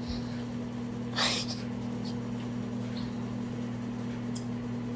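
Microwave oven running with a steady electrical hum. There is a brief breathy sniff about a second in.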